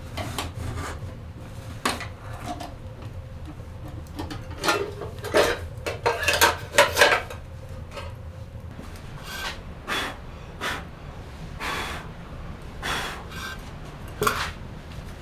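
Irregular scraping, rubbing and knocking of objects being handled, the loudest run of strokes about five to seven seconds in.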